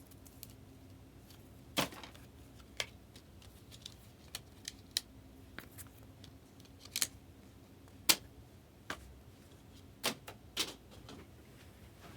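Trading cards and rigid plastic top loaders being handled on a table: about a dozen irregular sharp clicks and taps, the loudest about eight seconds in.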